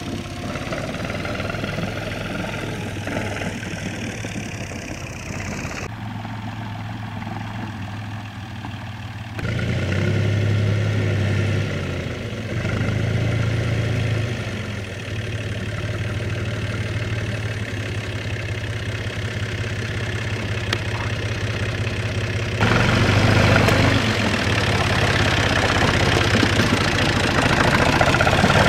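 Universal 445 DT tractor's diesel engine running steadily as the tractor drives through muddy ground. The sound changes abruptly a few times and is loudest in the last several seconds as the tractor comes close.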